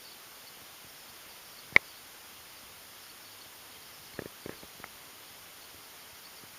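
Faint steady background hiss, with one sharp click a little under two seconds in and three fainter clicks a couple of seconds later.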